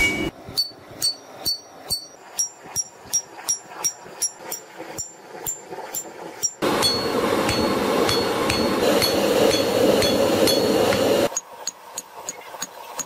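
Sledgehammer blows on red-hot steel on an anvil, about three a second, each with a short metallic ring. For several seconds in the middle a loud steady rushing noise covers the blows, then the hammering comes through clearly again.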